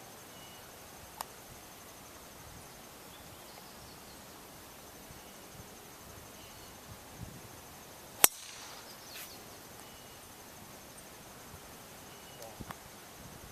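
A driver striking a golf ball off the tee: one sharp, loud crack about eight seconds in. A faint steady insect trill and a few faint bird chirps run underneath, and a smaller click comes about a second in.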